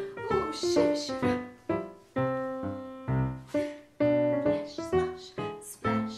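Solo piano ballet-class accompaniment in 2/4, notes and chords struck in a steady pulse, with a couple of held chords left to ring down.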